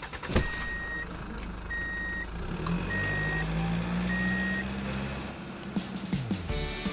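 A vehicle reversing alarm beeps four times, each beep about half a second long and a little over a second apart. Under the beeps a low engine hum rises and then falls away near the end.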